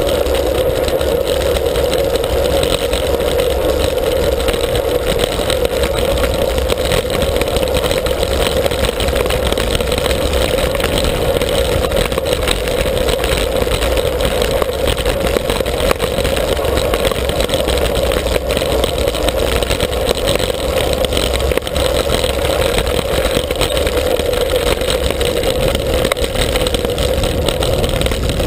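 Wind rushing over the microphone of a bike-mounted action camera on a fast road-bike descent, with tyre noise from the asphalt: a loud, steady rushing noise with a deep rumble underneath.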